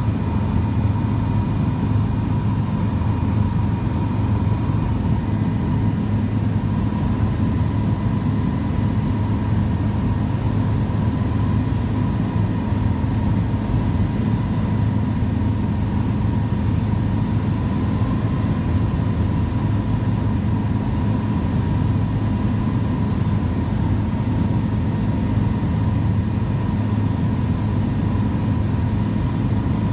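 Helicopter engine and rotor noise heard inside the cabin in flight: a steady low drone with a thin, constant whine above it.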